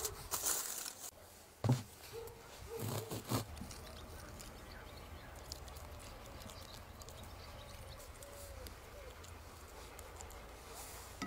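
Aluminium foil crinkling under the hands for about a second, then two or three short knocks. After that come faint, soft sounds of a spoon pressing and spreading creamy filling into a hollowed bread loaf.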